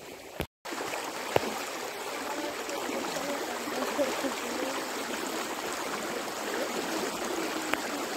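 Muddy floodwater from an overflowing river rushing steadily, a continuous churning of fast-moving water. The sound cuts out briefly about half a second in.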